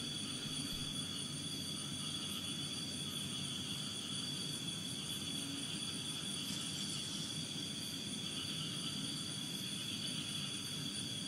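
A steady low rumbling drone hangs in the air without rising or falling. It is one of the unexplained 'trumpet' sounds from the sky reported in 2018, which witnesses say is not a train, an aircraft or machinery.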